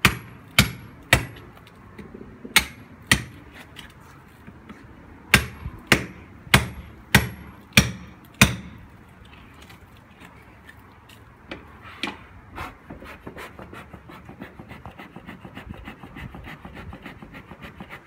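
Hand hammer striking a chisel against a sandstone-type wall stone, chiseling it loose. About a dozen sharp blows with a metallic ring come in short runs over the first nine seconds. Lighter, quicker tapping and scraping of stone follows.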